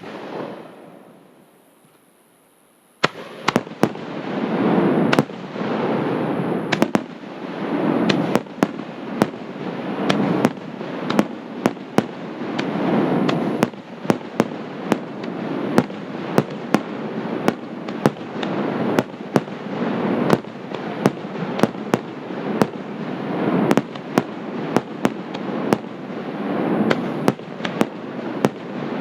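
Aerial fireworks at close range: one bang, a short lull, then from about three seconds in a continuous barrage. Many sharp bangs a second ride over a dense crackling rumble that swells and fades every couple of seconds.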